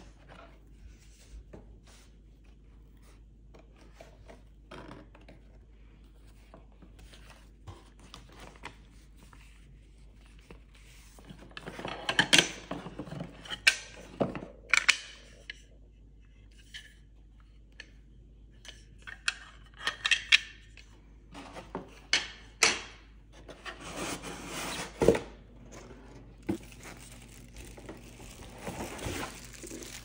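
Unboxing handling noise: light taps at first, then from about ten seconds in a coiled power cord and a plastic-wrapped coffee machine are lifted out of molded pulp packing in a cardboard box, with rubbing, scraping and scattered sharp knocks, and denser rustling near the end.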